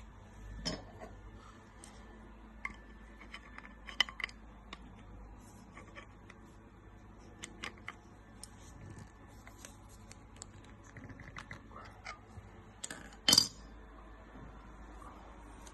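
Scattered metallic clinks and taps of an adjustable wrench and a pellet-stove igniter's metal tube being handled while the igniter is tightened into place, with one louder clank near the end.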